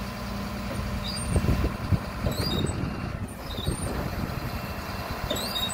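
A Mercedes refuse truck with a Faun Variopress body runs at the rear with its diesel engine going. There are a few heavier knocks about a second and a half in, and several short high squeaks, as the rear bin lift is worked.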